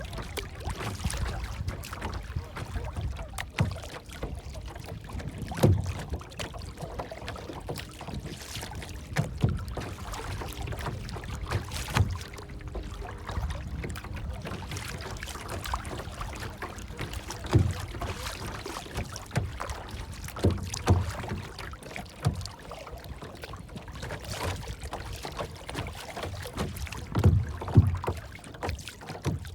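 Water lapping and sloshing, with irregular low thuds every few seconds.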